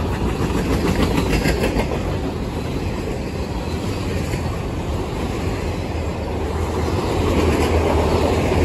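Freight cars of a CSX manifest train (covered hoppers, then autoracks) rolling past at close range: a steady rumble of steel wheels on rail, with clicks of wheels crossing rail joints about a second in. The rumble swells slightly near the end.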